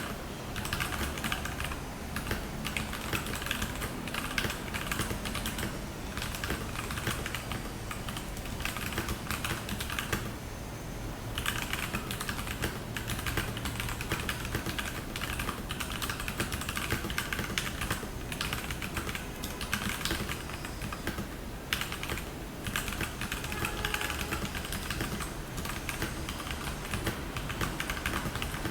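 Fast continuous typing on a Royal Kludge RK84 mechanical keyboard with stock Gateron Yellow linear switches and ABS double-shot keycaps: a dense run of key clacks, pausing briefly about ten seconds in and again around twenty seconds in.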